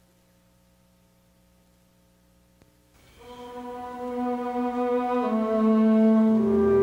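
Near silence for about three seconds, then slow instrumental processional music with long held notes fades in and grows louder, changing notes every second or so.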